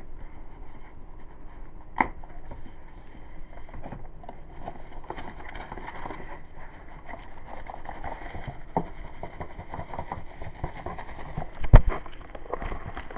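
Cardboard shipping box being opened and its contents handled: irregular rustling, scraping and small clicks, with a sharp click about two seconds in and a loud thump near the end.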